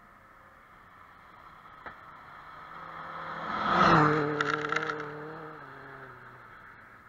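Rally car passing at speed on a gravel stage: its engine grows louder to a peak about four seconds in, then fades as it moves away. A short burst of crackling follows just after the pass.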